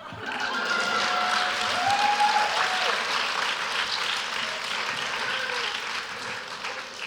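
Audience applauding. It swells in at the start and slowly dies away.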